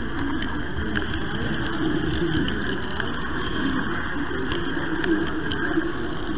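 Model train running along the track with the camera riding on it: a steady hum of motor and wheels rolling on the rails, with a few faint clicks.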